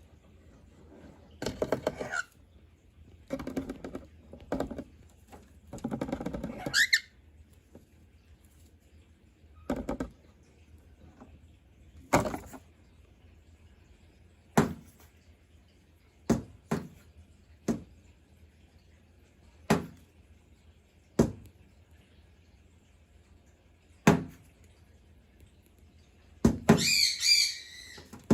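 Cockatiels moving about on a microwave: a few seconds of rustling and scuffling, then a string of single sharp taps a second or more apart, and a cockatiel's chirping call near the end.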